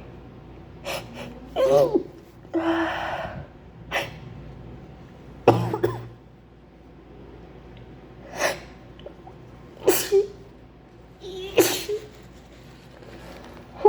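A woman sneezing repeatedly: about seven sharp sneezes in a row, the loudest about five and a half seconds in, with quick breaths between them.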